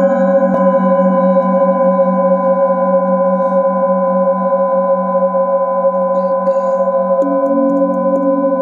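Metal singing bowls struck with a wooden mallet and left ringing together, a layered sustained ring with a slow, pulsing waver in the low tone. About half a second in one bowl is struck, and near the end another bowl is struck and a new tone joins the ring.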